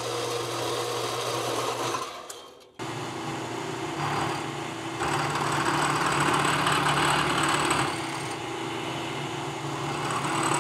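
A horizontal band saw's motor runs for about two seconds and fades away; then a vertical milling machine runs, its end mill cutting the end of a 7/16-inch rod clamped in a vise, the cutting sound growing louder about four seconds in and again near the end.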